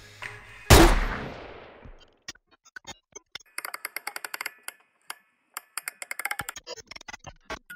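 A single loud handgun shot about a second in, with an echoing tail of about a second. After it come irregular sharp clicks in quick runs: typing on a computer keyboard.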